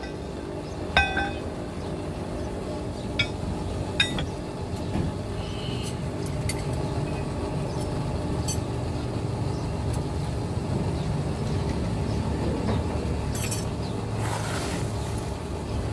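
A few sharp metallic clinks from flat steel plates being handled at a forge, the first, about a second in, ringing briefly, over a steady low rumble.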